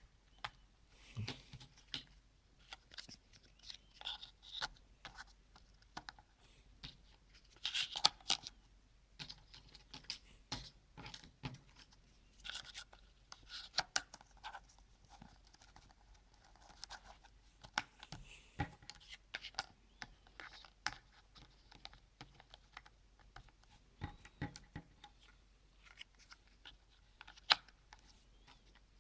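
Cardboard jigsaw puzzle pieces being handled and pressed into place: irregular light clicks, taps and short scraping rustles.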